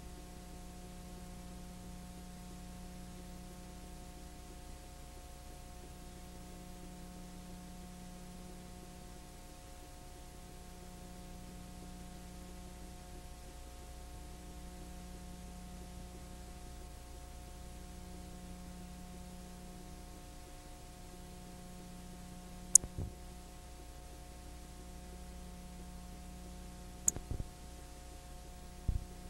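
Steady electrical mains hum with a faint hiss, its low tone swelling and fading every few seconds. Three sharp clicks come in the last seven seconds.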